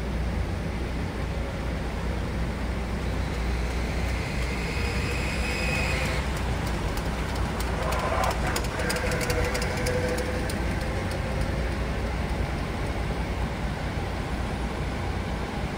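Steady low rumble of coach diesel engines idling and moving, with a minibus driving past close by about eight seconds in.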